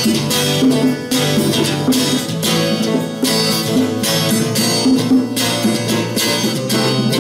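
Acoustic guitar strummed in a steady rhythm with no singing: the instrumental close of the song after its last sung line.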